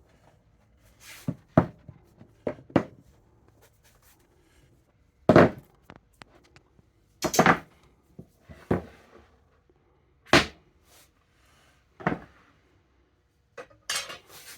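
Irregular knocks and thuds of heavy recycled-plastic lumber boards being handled and set down against each other, the loudest two about five and seven seconds in.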